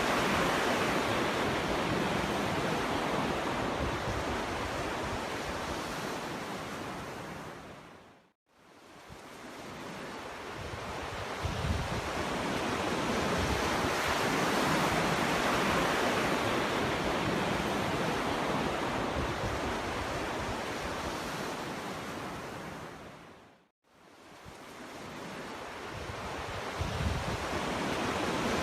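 Sea waves breaking and washing on a beach: a noisy surf hiss that swells and ebbs, dropping briefly to near silence twice, about eight seconds in and again near twenty-four seconds in.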